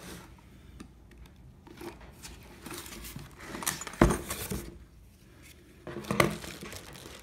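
Packaging rustling and crinkling as a boxed drill press sliding table is unpacked, with a sharp knock about four seconds in and another about six seconds in.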